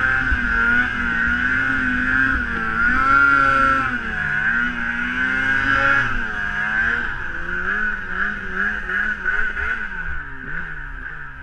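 Snowmobile engine running hard on a climb, its pitch rising and dipping with the throttle. About seven seconds in the revs drop and waver up and down, and the engine gets quieter near the end.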